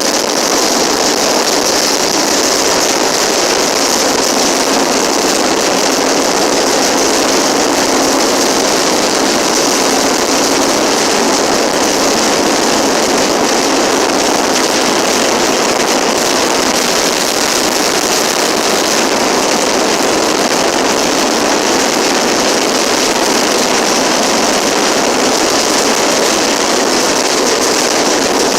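Steady, loud noise of a moving train, an even rushing sound with no distinct tones or individual clanks.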